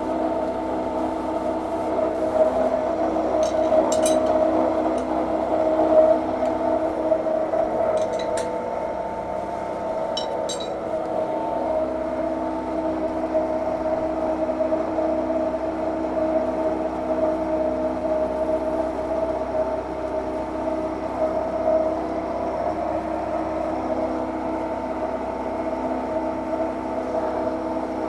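Milling machine side-milling aluminium with an end mill in a conventional cut: a steady hum of spindle and feed with several held tones, and a few short high ticks in the first half. The cut leaves a poor surface finish, and the operator believes the feed is too high.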